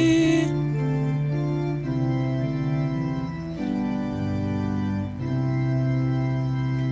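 Organ-voiced electronic keyboard playing an interlude of sustained chords, changing about every one and a half to two seconds. The end of a sung phrase fades out about half a second in.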